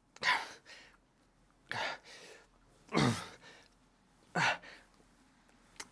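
A man breathing out hard in sharp puffs, about one every second and a half, one with each repetition as he lifts dumbbells in side lateral raises.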